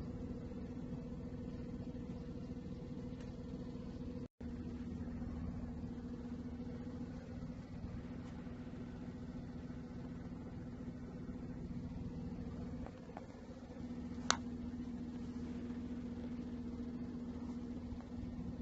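A steady low hum with room noise. It drops out for a split second about four seconds in, and a single sharp click comes about fourteen seconds in.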